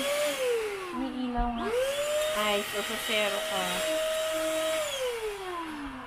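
Handheld dust-mite vacuum cleaner with UV sterilizer running, a motor whine over rushing air as it is worked over sofa fabric. Its pitch slides up and down, holds steady for a few seconds in the middle, then slides down near the end, with a dull thud at about a second and a half.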